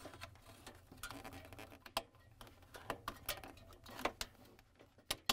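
A few sharp plastic clicks and soft handling noise as a refrigerator defrost heater's wiring-harness connector is pushed and snapped into its metal bracket. The clearest clicks come about 2 s and 4 s in and again near the end.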